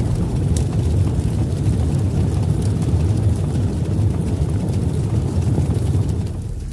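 Low, steady rumbling sound effect that eases off near the end.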